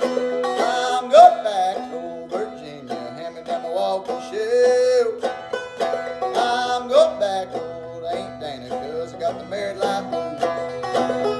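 Clawhammer banjo playing a blues tune: a steady run of picked notes over a ringing drone string, with a few notes that slide in pitch.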